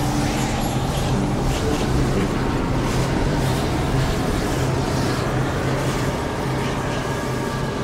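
Sound-design drone: a dense, steady rumbling whoosh with a low hum held underneath, accompanying a swirling vortex effect.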